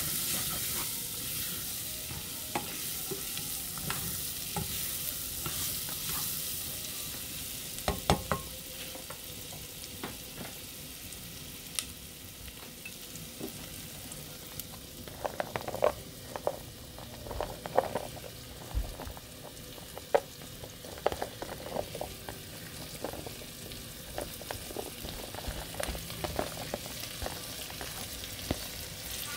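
Pork cubes, onion and carrot sizzling in an enamel pot as a spatula stirs them, with a steady frying hiss. Short clicks and knocks of the spatula against the pot come through, most often about halfway through.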